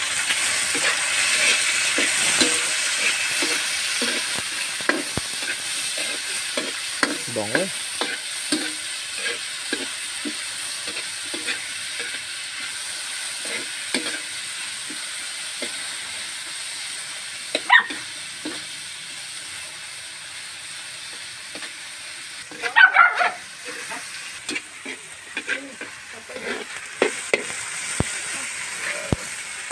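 Tomatoes, onion and garlic sizzling in a wok as they are stirred, with a metal ladle scraping and knocking against the pan; the sizzle is loudest at the start and slowly dies down. A short high-pitched cry breaks in about two-thirds of the way through.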